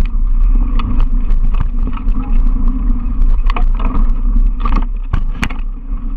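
Mountain bike rolling fast over a dirt forest trail: steady low wind and tyre rumble, with frequent clicks and knocks as the bike rattles over bumps, the sharpest about five seconds in.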